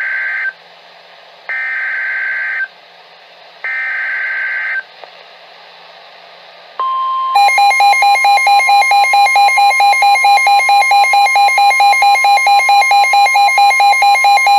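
NOAA Weather Radio Emergency Alert System alert: the end of one burst and two more bursts of the SAME digital header, each about a second of harsh buzzing data tones with faint static between them. About seven seconds in, the steady 1050 Hz warning alarm tone starts, and half a second later a loud, harsh beep pulsing about five times a second sounds over it.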